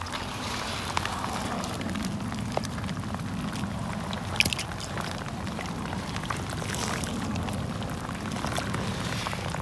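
Rainwater trickling and splashing through a muddy trench, with wet squelches of mud being scooped by hand to let a full swale overflow. Many small splashes and ticks run over a steady watery hiss.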